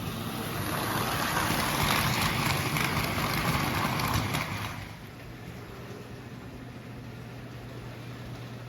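American Flyer S-gauge toy train with a long die-cast consist rolling along the track. The wheel and track noise is loudest for the first four seconds or so and drops off about five seconds in as the train moves away, leaving a steady low hum.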